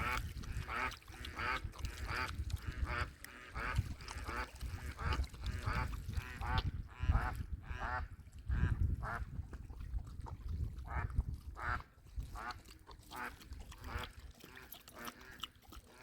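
Waterfowl (ducks or geese) calling over and over in short honking quacks, about two a second, dying down near the end, with a low rumble of wind on the microphone underneath.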